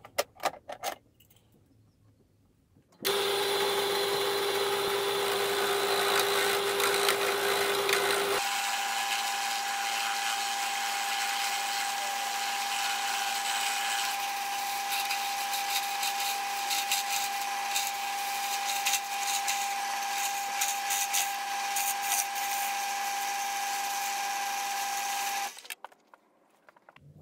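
Wood lathe running while a turning tool cuts a wooden handle blank: a steady motor whine under the rough, scratchy hiss of the tool shaving wood. The whine steps up in pitch about 8 seconds in and the sound stops abruptly near the end; before it starts, a few light clicks.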